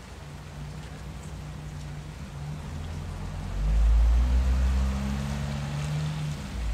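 Steady rain-like hiss under low, held droning tones that step in pitch every second or so, with a deep rumble swelling louder about three and a half seconds in.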